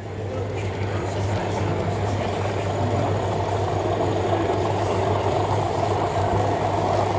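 Diesel engine sound of a sound-fitted model locomotive played through its small onboard speaker, running steadily after fading in over the first second.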